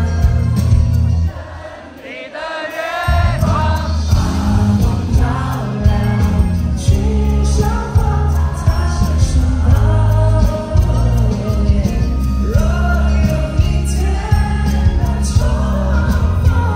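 Live pop song: singing over a band with a heavy bass line. The bass and backing drop away about a second in, leaving the voice nearly alone, and the full band comes back in about three seconds in.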